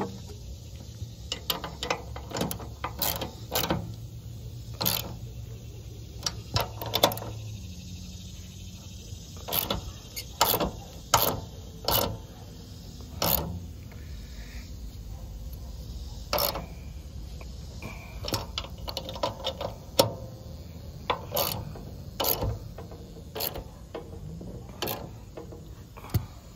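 Wrench tightening bolts on a mower deck's belt bracket and tensioner: repeated metal clicks in irregular clusters as the wrench works the bolts.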